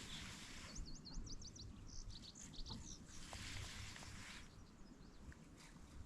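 A bird calling: a quick run of high chirps about a second in, then a few more around two to three seconds, over soft outdoor hiss and low rumble.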